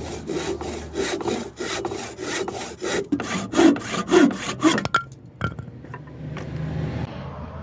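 Hand saw cutting through a piece of wood, with strokes at about three a second that stop about five seconds in as the cut finishes, followed by a couple of sharp knocks.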